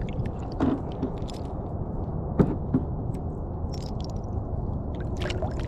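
Strong wind buffeting the microphone as a steady low rumble, with scattered small clicks and crackles over it and one sharper click about two and a half seconds in.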